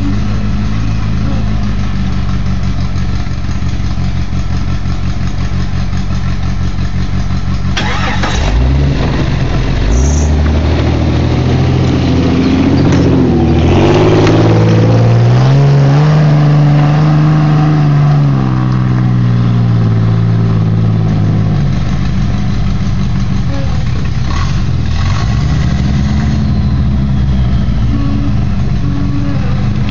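Rock buggy's engine idling, then revving up and holding high revs for several seconds before dropping back as it crawls up over rocks, with a shorter burst of revs near the end. Two sharp knocks about eight and ten seconds in, as the climb begins.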